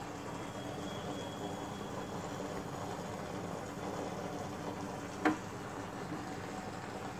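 Aquarium filter running: water splashing and bubbling steadily over a faint low pump hum. A single sharp click about five seconds in.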